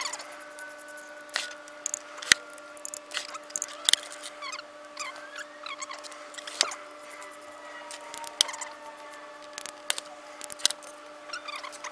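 Irregular sharp clicks and metallic taps from a torque wrench with a 6 mm Allen socket working on the transmission pan bolts as they are tightened in sequence, over a steady low hum.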